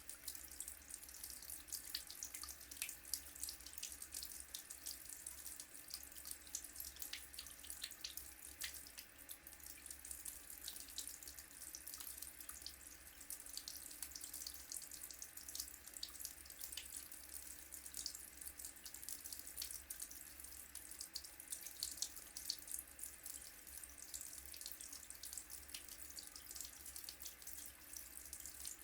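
Water running steadily from a tap into a sink, a continuous splashing hiss with fine crackling droplet sounds throughout.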